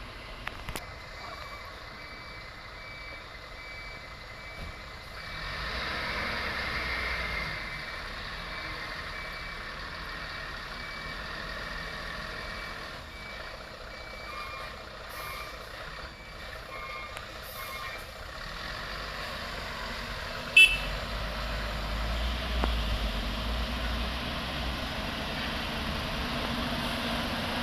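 Truck reversing alarm beeping in a steady repeated pattern over heavy truck engine noise, the beeps fading out about two-thirds of the way in. A single sudden sharp crack follows, then a deeper truck engine rumble grows louder.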